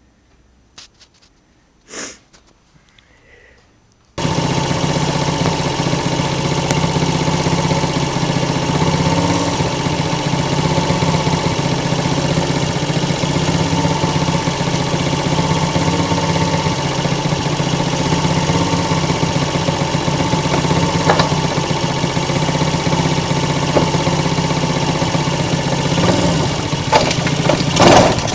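A few faint clicks and one short sound, then about four seconds in a mini ATV's small engine comes in suddenly and runs steadily at idle. Near the end there are a few knocks and the engine picks up, getting louder.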